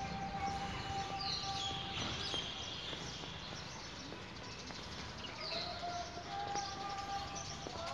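Outdoor ambience: a low steady rumble with a steady whining tone held throughout, and a bird giving a short falling call twice.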